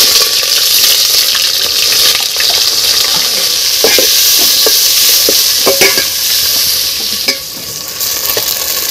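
Sliced red onions sizzling as they fry in hot mustard oil in a metal pot, with a spoon stirring and knocking against the pot several times in the middle.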